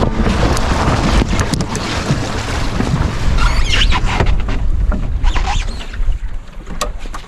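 Strong wind buffeting the microphone aboard a sailing canoe in rough water, with water splashing and a run of sharp knocks and plastic tarp rustling as the camera is handled.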